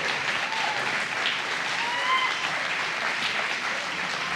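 Audience applauding, with a few voices calling out about two seconds in.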